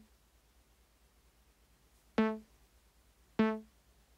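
Eurorack synthesizer voice playing short, quickly decaying notes on one repeated pitch from a Monome Teletype probability sequencer. After the tail of one note, a step passes silently, then two notes sound a little over a second apart: steps are being randomly muted by the sequencer's 50% probability setting.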